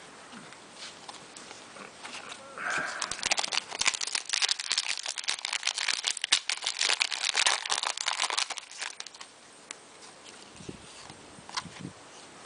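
Plastic wrapper of an Upper Deck MVP hockey card pack being torn open and handled, a dense run of quick crinkles from about two and a half seconds in until about nine seconds in, with light handling noises around it.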